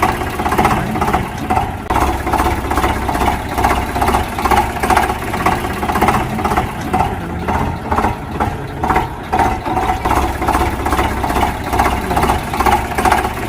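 A motor running steadily with an even pulsing beat, about three pulses a second.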